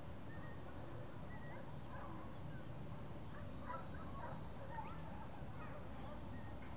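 Steady low rumble of wind on the microphone in an open field, with faint, scattered distant dog barks and short high calls over it, clustered around the middle.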